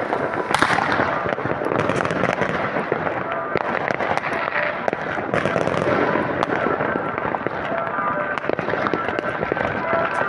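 New Year's fireworks: a dense, continuous barrage of rockets and firecrackers banging and crackling, with many sharp reports overlapping throughout.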